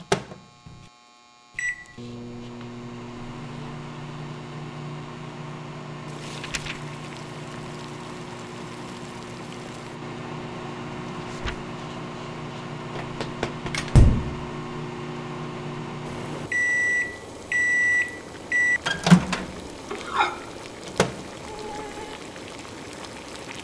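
Microwave oven: a short button beep, then the oven runs with a steady hum for about fifteen seconds, with a single thump partway through. It ends with three beeps as the cycle finishes, followed by a few knocks and clicks.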